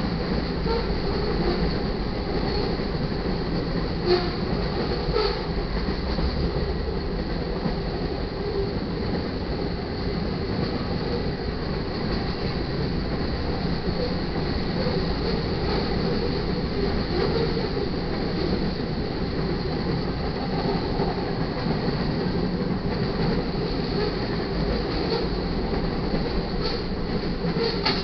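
Cars of a mixed freight train rolling past close by: a steady rumble of steel wheels on the rails, with a few sharper clicks and clunks from the wheels and rail joints.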